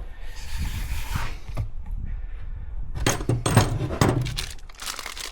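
Metal clinks and knocks as a frozen wheel bearing is handled and lined up at the hub knuckle. A short rustle comes first, then a quick run of clicks and knocks about three seconds in.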